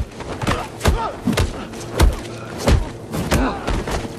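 Heavy punches and body blows landing in a film fight scene, one thud about every half to two-thirds of a second, with men's grunts between them.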